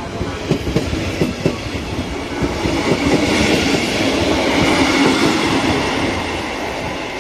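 Passenger coaches of a departing train rolling past close by. The wheels clack over the rail joints at first, then give way to a louder, steadier rumble with a held high tone in the middle, which fades as the last coach moves away near the end.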